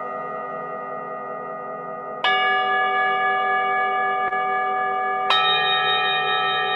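Singing bowls struck one after another, each ringing on with many steady overtones. Fresh strikes come about two seconds in and again about five seconds in, each layering over the still-sounding ring of the one before.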